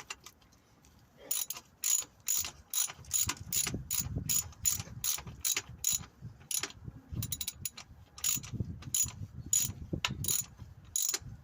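Hand ratchet clicking in quick, uneven strokes as a bolt is wound in on a car's lower engine mount, with a short pause partway through.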